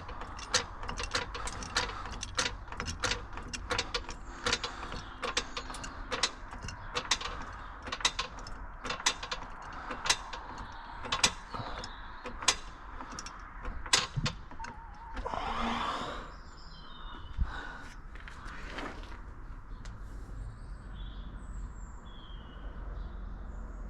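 A car jack being worked to lift the car, giving sharp, evenly spaced clicks about twice a second that stop about 14 seconds in, followed by a brief scraping sound and quieter, scattered knocks.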